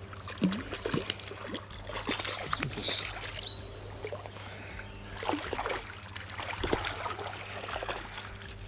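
Creek water splashing and trickling close by, in irregular small splashes and knocks.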